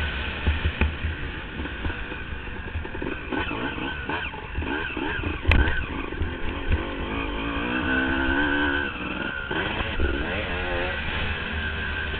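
Motocross dirt bike engine revving up and down hard at race speed, heard from a camera mounted on the bike, with heavy wind rumble on the microphone. A single sharp knock about five and a half seconds in is the loudest moment.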